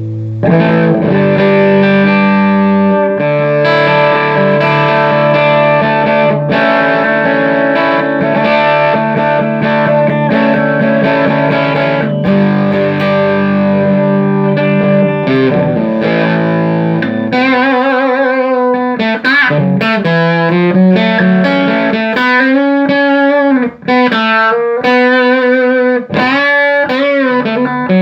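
Electric guitar played through a Fender '57 Custom Tweed tube amp, tested after its leaking preamp and phase-inverter coupling capacitors were replaced. Held chords and notes for about the first seventeen seconds, then notes bent and wavering in pitch.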